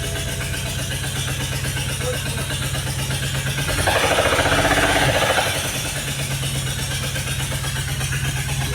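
BMW engine running at idle with a rapid, even pulse, the engine that the title says is misfiring; it gets louder for about a second and a half a little under four seconds in, then settles back to idle.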